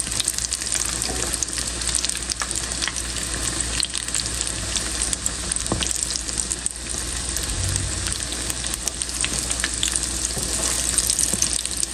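Pakoras deep-frying in hot oil: a steady sizzle full of small crackling pops, as a slotted spatula turns the fritters in the pan.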